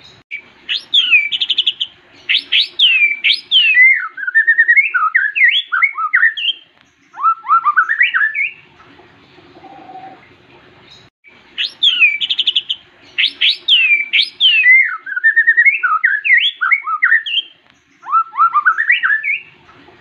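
White-rumped shama (murai batu) singing: a loud, fast run of varied whistled phrases, made of falling slurs, quick trills and rising notes, lasting about eight seconds. After a pause of a couple of seconds, the same run of phrases comes again.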